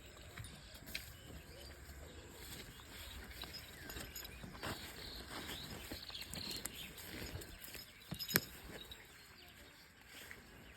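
Cattle-shed ambience with scattered knocks and shuffling, a sharper knock about eight seconds in, and faint bird chirps.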